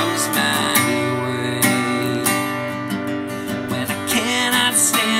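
Acoustic guitar strummed in a slow worship song, with a man singing; his voice bends through a phrase about four seconds in.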